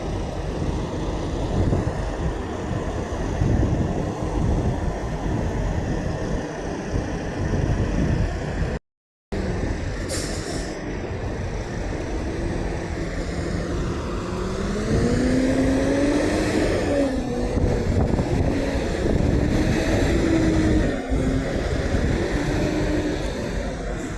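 Semi-truck traffic running by with a steady low rumble. A short hiss of air comes about ten seconds in. Over the second half a truck engine accelerates, its pitch rising and falling.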